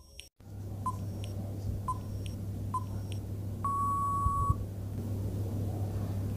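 Countdown timer sound effect: short electronic beeps about once a second, then one longer beep lasting just under a second as the time runs out.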